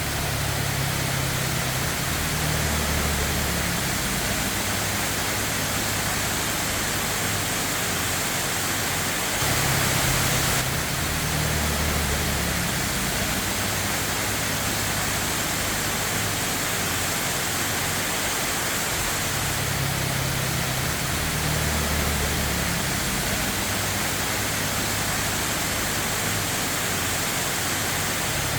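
Steady rush of a waterfall, an even wash of falling water with a low rumble that swells and fades every few seconds, a little louder about ten seconds in.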